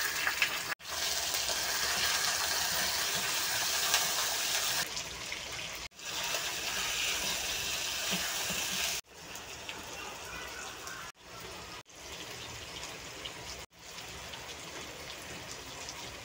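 Raw chicken pieces sizzling in hot oil with sliced onions in a wok: a steady hiss, loudest for the first nine seconds and quieter after, cut off by several short silences.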